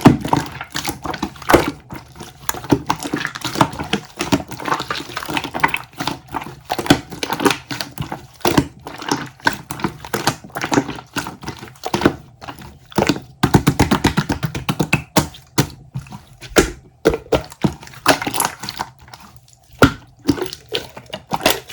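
Water sloshing and splashing in a small room, with many irregular clicks and knocks.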